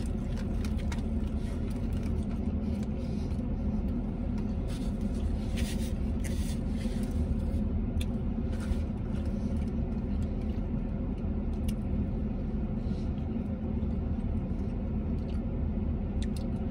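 Steady low rumble of a vehicle heard inside its cab, with faint scattered clicks from a man chewing a sandwich.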